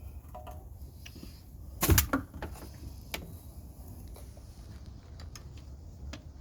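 One heavy clunk about two seconds in, followed by a few light clicks, over a low steady rumble.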